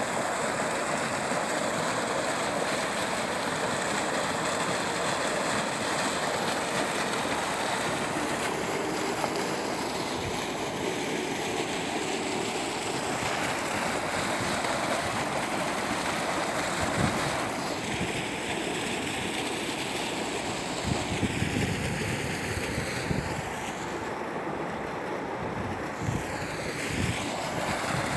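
Steady rushing water, a continuous wash like surf.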